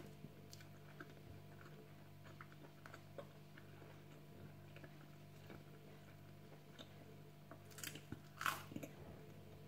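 Quiet chewing, then a crunchy bite into a piece of toast about eight seconds in, followed by a few more crunches. A steady low hum runs underneath.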